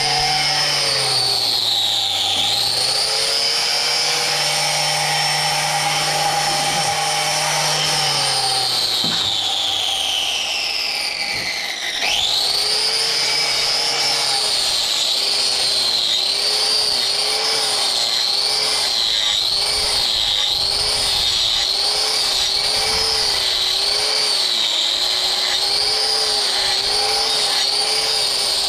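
An electric power tool, a hoof-trimming grinder, whining as it works a cow's hoof. Its pitch sags near the start, then it winds down over a few seconds. About twelve seconds in it spins back up, and its pitch then wavers about once a second as it is pressed to the hoof and eased off.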